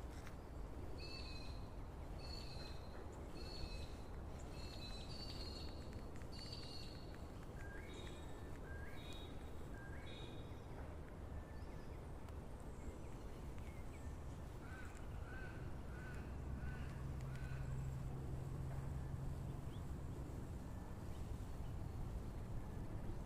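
Wild birds calling: a run of short, repeated high calls for the first several seconds, then a few rising calls, then a quicker series of lower calls, over a steady low rumble.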